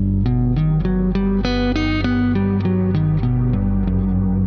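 Guitar playing a four-note G major 7 sharp 5 arpeggio pattern on the fourth and third strings, single notes at about four a second stepping up and down, over a sustained low G bass note.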